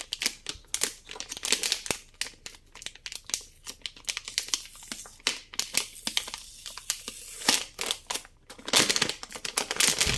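Plastic packaging crinkling and crackling in irregular bursts as a hard drive is unwrapped by hand, with some tearing.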